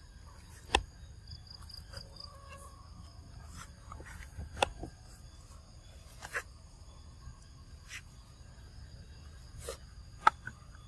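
Insects trilling steadily in the background, with a few short sharp clicks, the loudest about a second in, halfway through and near the end.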